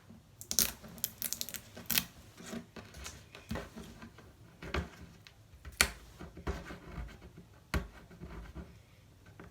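Irregular clicks, taps and light knocks of small hard objects being handled and set down on a table, loudest a couple of times near the middle and again near the end.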